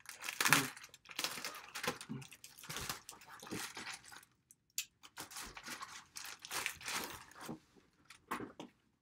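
A plastic mailer bag being torn open and crinkled, in a run of irregular rustling bursts. There is a short break about four and a half seconds in, then more rustling of the packaging.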